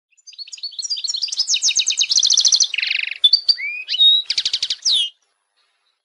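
European goldfinch singing a fast, varied song of repeated twittering trills, a buzzy stretch and gliding notes, ending on a falling note about five seconds in.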